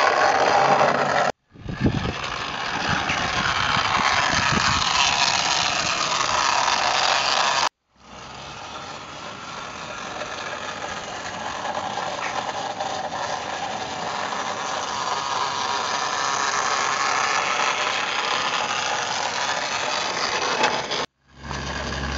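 Small battery-powered electric motor and gearbox of a model railway tool van running steadily, with a mechanical rattle, as it propels a free-wheeling Wickham trolley along garden-railway track. The sound cuts out for an instant three times.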